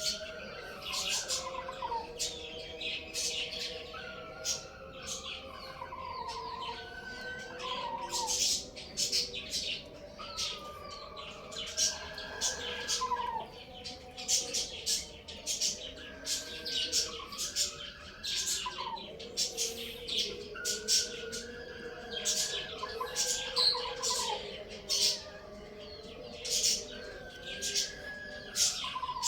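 Many small birds chirping densely and continuously. Longer drawn-out calls that drop in pitch at the end come in every few seconds.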